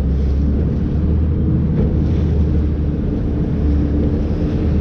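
Bass boat's outboard motor running at cruising speed through choppy water: a steady low rumble, with wind buffeting the microphone.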